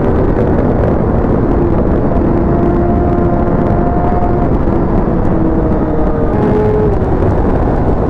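Sport motorcycle at a steady cruise: loud wind rush over the microphone, with the engine's even note faintly underneath and its pitch shifting slightly now and then.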